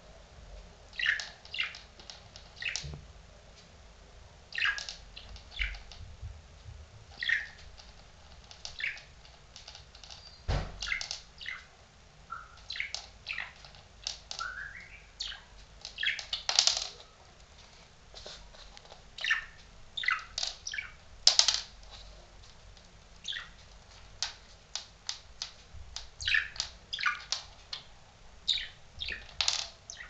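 Budgerigar giving short chirps throughout, mixed with the light clicks and knocks of the small plastic cap it noses along the hard floor; one heavier knock about ten seconds in.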